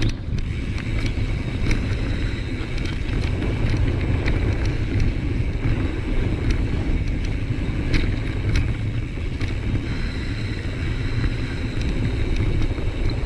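Wind buffeting the microphone and mountain bike tyres rolling over a dirt trail, a steady rumble, with a few sharp clicks and rattles from the bike.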